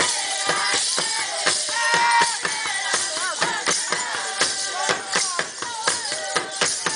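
Traditional Rwandan drumming with regular, steady drum strikes, voices singing or chanting over it, and a shaken, jingling rattle sound.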